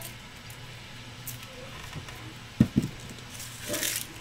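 Dry onion skin rustling as it is peeled off by hand, with two short dull knocks a little past halfway over a faint steady low hum.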